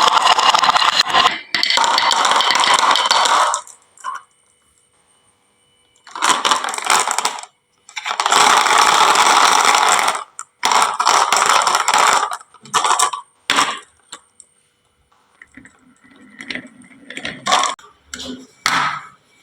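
Marbles clattering down a wooden marble-run slope in several long rattling runs with short pauses between them, then a few short clicks and clacks near the end.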